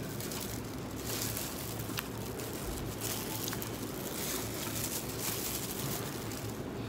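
Quiet, steady room noise: an even hiss with a low hum underneath and a few faint soft clicks.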